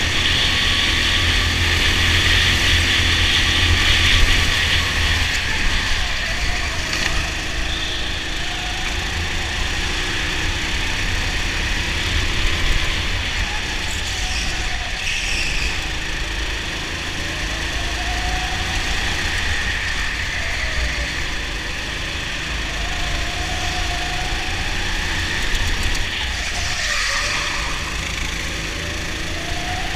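Go-kart engine heard from the driver's seat, running hard through a lap, its pitch climbing several times as it accelerates out of the corners and dropping back into them.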